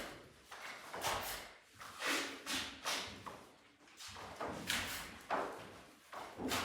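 Irregular thumps, each followed by a brief scrape or rustle, about one or two a second, from work laying underfloor heating pipe.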